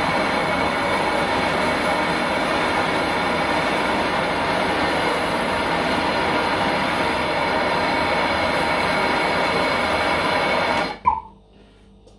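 Gas blowtorch flame running with a steady loud hiss, heating a copper pipe fitting to melt in the solder. It cuts off suddenly near the end with a short pop as the torch is shut off.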